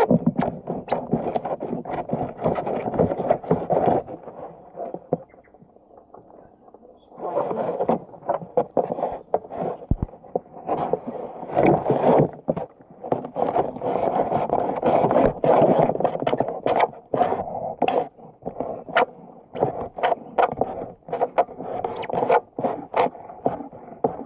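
Filleting knife scraping and cutting through a kahawai on a filleting table, in quick rough strokes, with a pause of a few seconds about four seconds in.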